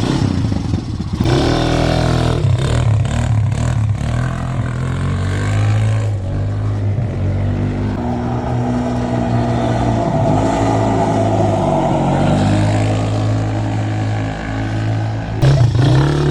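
A 2005 Polaris Phoenix 200 ATV's single-cylinder four-stroke engine running, its pitch dipping and rising with the throttle. Near the end there is a sharp noise, after which the note is louder and steadier.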